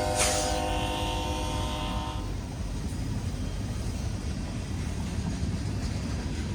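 Union Pacific freight locomotive's air horn sounding a held multi-note chord that cuts off about two seconds in, ending the horn show. After that there is a low, steady rumble.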